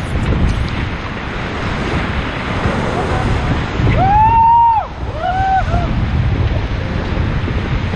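Rushing river water with wind buffeting the microphone, from a raft on white water. About four seconds in a person lets out a long shouted whoop, followed by a shorter one about a second later.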